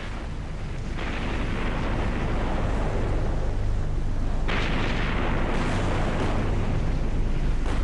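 Naval bombardment: a dense, continuous rumble of ship's gunfire and shell bursts. It grows fuller about a second in and again about four and a half seconds in.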